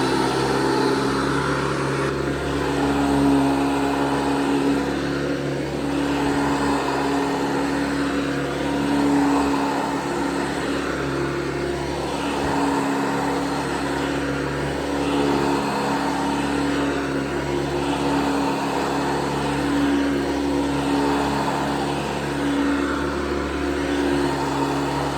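1982 Hoover Guardsman upright vacuum cleaner running at full speed with a steady motor hum. Its level swells and eases every few seconds.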